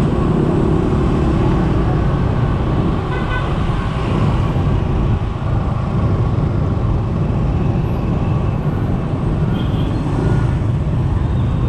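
Dense motorbike traffic heard from a riding scooter: a steady low rumble of engines and road noise, with short horn toots a few times, about three seconds in and again around eight to ten seconds in.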